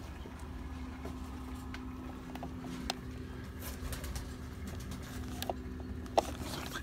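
Racing pigeons cooing over a steady low hum, with a few light clicks and a sharper knock near the end.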